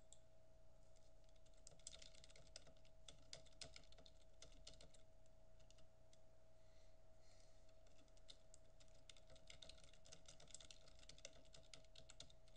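Faint typing on a computer keyboard: quick, irregular keystrokes in runs with short pauses. A faint steady hum sits under it.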